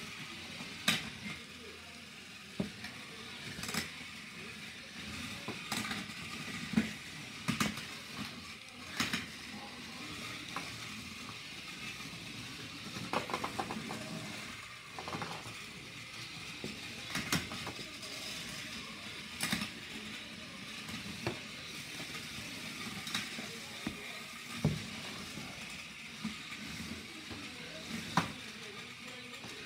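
Remote-controlled HEXBUG BattleBots toy robots driving and fighting in a plastic arena: a steady buzz of their small electric motors, broken by irregular plastic clicks and knocks as the robots ram each other and the arena walls.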